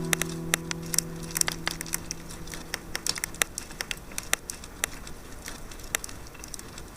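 Wood fire crackling and popping with irregular sharp snaps. The last acoustic guitar chord rings on underneath and fades away about three seconds in.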